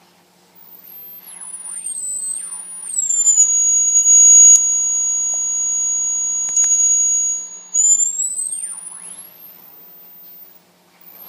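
Large loudspeaker driven by a home-built 4046 phase-locked-loop oscillator and inverter bridge, giving a piercing square-wave tone as the frequency knob is turned. The tone falls from very high to a steady high whistle near 6.7 kHz, holds about four seconds with two sharp clicks, then glides back up out of hearing.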